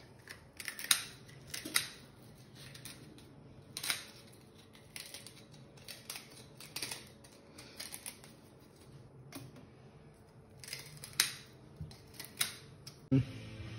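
Irregular sharp snips and cracks of sea urchin shells being cut open, the hard shell and spines clicking. About a dozen separate clicks, spaced unevenly, the loudest about a second in and again near eleven seconds.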